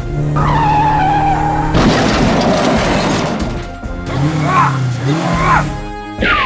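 Cartoon background music with sound effects: a crash with a shattering noise about two seconds in that fades over the next couple of seconds, then wobbling, sliding whistle-like tones and a falling glide near the end.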